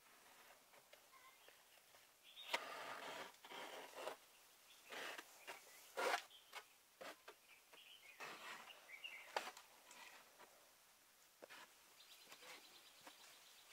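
Sandpaper rubbed by hand over the patched bodywork of a homemade car, in several short, faint scratchy bursts a second or two apart.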